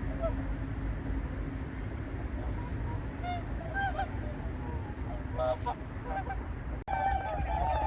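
Whooper swans calling with short honking notes, a few scattered at first, then many overlapping in a dense chorus from about seven seconds in, over a steady low rumble.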